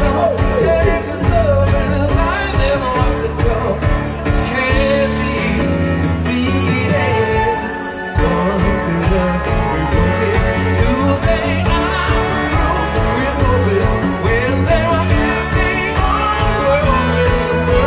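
Live band playing an upbeat pop-rock song with sung vocals over drums, bass and keyboards. About eight seconds in the band briefly drops out, then comes back in.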